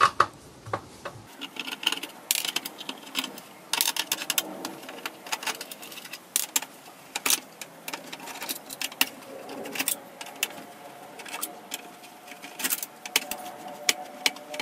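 Screwdriver taking screws out of a circuit board in a metal chassis: irregular sharp clicks and small metallic ticks, with a faint steady tone in the last few seconds.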